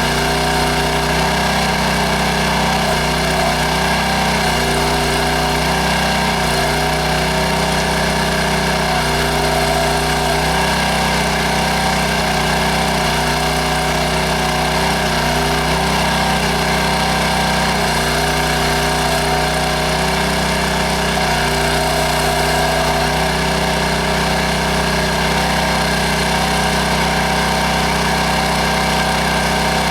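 Small engine of a towable backhoe running steadily while digging, with some of its tones shifting every second or two as the load changes.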